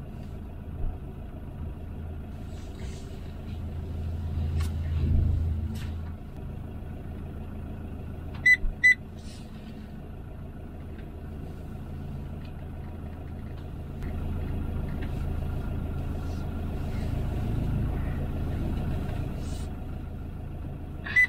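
Motorhome engine running at low speed while manoeuvring, picking up briefly about four to five seconds in and again later. Two or three short, loud electronic beeps sound about eight seconds in, and a fast run of beeps starts right at the end.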